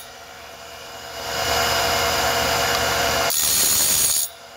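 A bandsaw blade sharpener's diamond wheel grinding the face of a carbide-tipped tooth over the steady hum of its motor. The grinding comes in about a second in and cuts off sharply near the end as the machine cycles to the next tooth.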